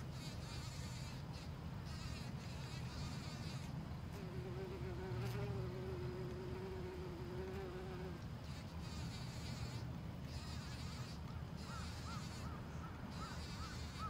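A fly buzzes past for about four seconds, its single wavering hum starting about four seconds in, over a steady low wind rumble. Near the end a bird calls in a quick series of short chirps.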